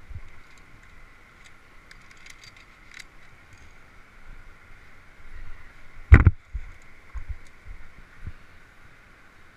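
Via ferrata climbing gear and a body-worn camera in motion: a few light clicks about two to three seconds in, then a loud thump just after six seconds and some softer knocks, over a steady high-pitched hum.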